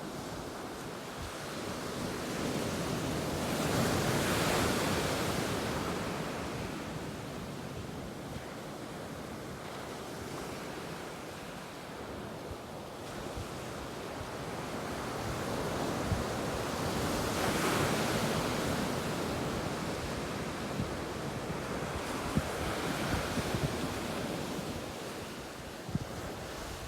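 Ocean waves breaking on a beach. Two big swells of surf peak about four seconds in and again near the middle, with wind buffeting the microphone in low gusts throughout.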